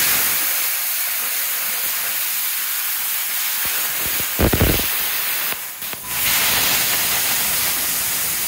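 BestArc BTC500DP plasma cutter torch cutting through a steel bar: a steady, loud hiss of the plasma arc and its compressed air. A low thump comes about four and a half seconds in, and the hiss drops out briefly about six seconds in.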